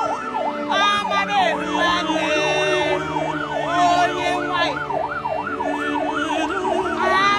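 Vehicle siren on a fast yelp, its pitch rising and falling about twice a second.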